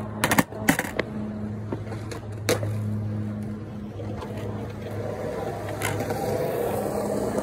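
Skateboard wheels rolling on concrete, with a few sharp clacks in the first second and another about two and a half seconds in; the rolling grows louder near the end as the board comes back toward the ramp. A steady low hum sits under it throughout.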